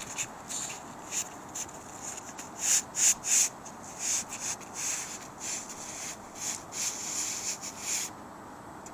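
Gloved hands rubbing and pressing down a sheet of torch-on roofing membrane: a run of irregular scuffing strokes, one or two a second, that stops about eight seconds in.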